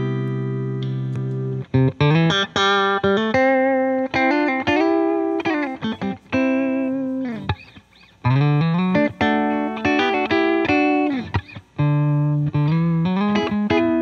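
Electric guitar played solo: a chord rings out for a couple of seconds, then phrases of picked notes with slides up into notes, pausing briefly twice.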